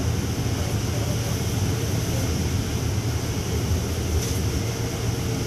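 Steady low rumble of a passenger rail car running, heard from inside the car, with a faint even hiss above it.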